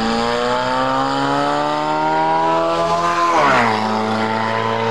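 A convertible sports car's engine revs under acceleration, its pitch climbing steadily for about three seconds. About three and a half seconds in, the pitch drops sharply as the car comes past close by, and the engine then runs on at a steady, lower pitch.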